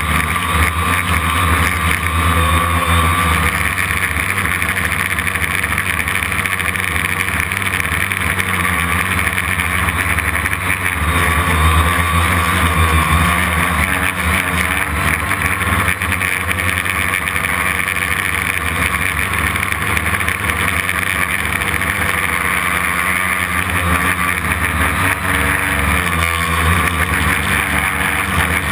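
Homemade quadcopter's brushless motors and propellers running steadily in flight, with small rises and falls in pitch. Heard up close from the frame, right beside one motor.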